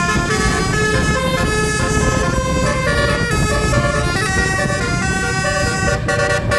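A bus's basuri horn, a multi-tone musical air horn, plays a stepped tune of several notes at once over the low running of the bus engine.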